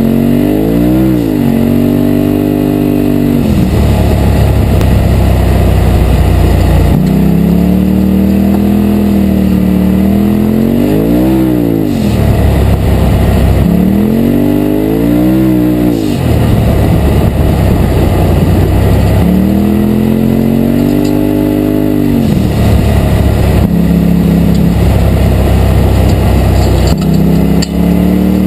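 Polaris RZR Turbo side-by-side's turbocharged twin-cylinder engine, heard from inside the cab, accelerating and easing off on a gravel road. The engine note rises and falls about five times, with a deep rumble between the surges.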